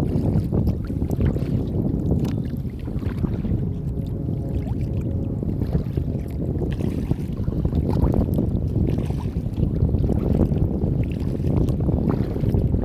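Wind rumbling on a kayak-mounted phone's microphone, with water splashing and lapping against the kayak as it is paddled, including short splashes scattered throughout.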